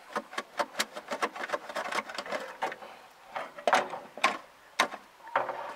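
Metal clicking and knocking from a wrench worked on a stuck stud of a mower's air filter housing: a quick run of light clicks, then a few louder, sharper knocks.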